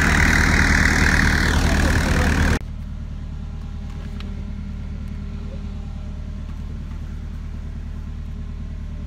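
Tow truck's engine running with its hydraulics working the tilted flatbed, loud, with a falling whine just before the sound cuts off about two and a half seconds in. After the cut comes a quieter, steady hum of the truck and its winch, muffled inside the car being pulled up onto the deck.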